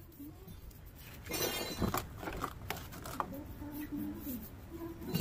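A brush scrubbing along a steel barbell bar: about a second of scratchy brushing, then a few sharp clicks as the bar is handled, with faint voices in the background.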